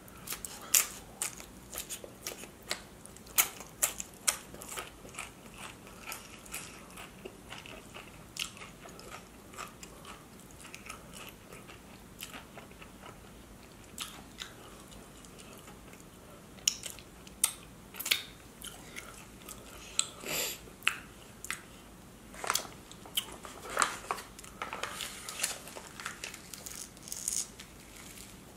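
Close-up crunching and chewing of Dorito tortilla chips loaded with cheese and lettuce: bursts of sharp crunches in the first few seconds and again through the second half, with softer chewing in between.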